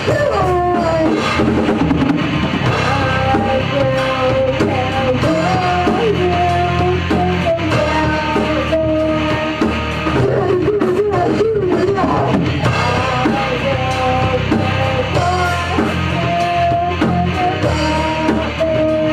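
Rock band playing loud at rehearsal, with electric guitars, bass and drum kit, and a wavering melody line over them.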